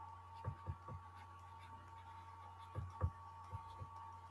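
Faint low taps and knocks of a stylus on a pen tablet during handwriting, a few at irregular moments, over a steady low hum.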